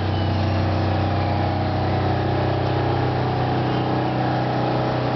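A steady machine hum from a running motor, holding one even low pitch with no change in speed.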